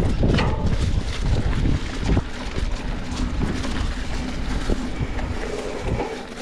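Mountain bike riding a dirt trail: tyres rumbling over the ground with frequent knocks and rattles over bumps, under heavy wind noise on the microphone.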